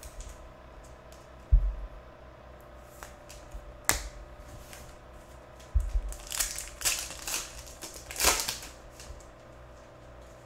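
Trading cards handled and knocked down on the table. Then a foil pack of 2022 Donruss Optic UFC hobby cards is torn open, its wrapper crinkling in bursts through the second half.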